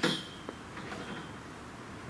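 A sharp clink of something hard being struck, with a short ringing tone that fades quickly, then a small click about half a second later.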